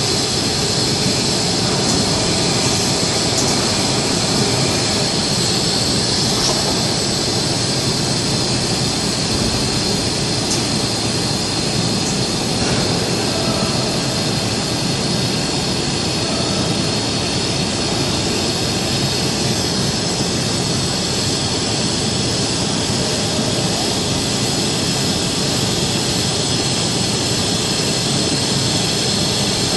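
Steady, unbroken loud hiss and rumble of workshop machinery, with a brighter high hiss over a low drone and no change in level throughout.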